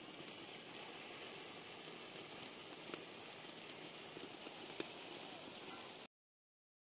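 Potato-and-egg fritters deep-frying in hot oil in a metal karai: a steady sizzle, with two light clicks of a metal spatula against the pan about three and five seconds in. It cuts off suddenly about six seconds in.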